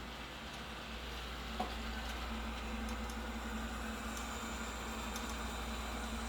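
Samsung Jet Bot robot vacuum running, a steady whirring with a constant hum, and a single small click about a second and a half in.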